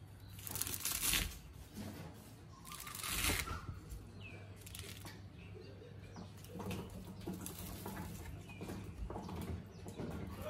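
Chef's knife slicing through sliced ham and then a block of luncheon meat, the blade meeting a wooden chopping board. Two louder strokes come within the first few seconds, then a run of lighter, quicker cuts in the second half.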